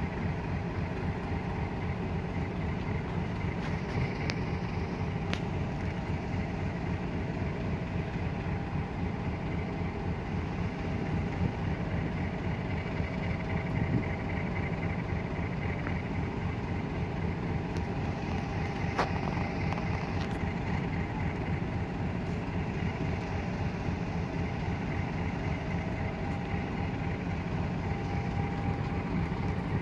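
Class 50 diesel-electric locomotive's English Electric 16-cylinder engine running with a steady low throb. A few sharp clicks come about 4, 5 and 19 seconds in.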